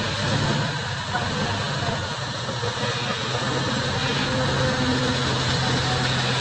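Scania heavy truck's diesel engine running steadily at low revs as the rig creeps through a tight turn hauling a mobile crane; a low, even engine hum.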